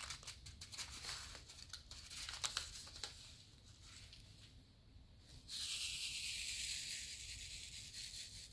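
Thick resealable plastic bags of diamond-painting drills being handled: crinkling crackles for the first few seconds, then a quieter pause, then a steadier high rustle from about five seconds in.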